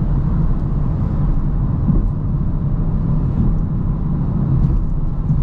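BMW M440i's turbocharged inline-six with an AC Schnitzer exhaust and its tyres, heard inside the closed cabin at motorway speed as a steady low drone.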